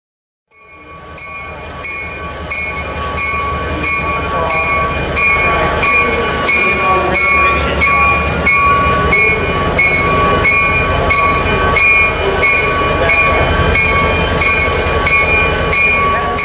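Railroad locomotive running and moving, with a low rumble and a ringing that repeats about one and a half times a second; it starts about half a second in and builds up.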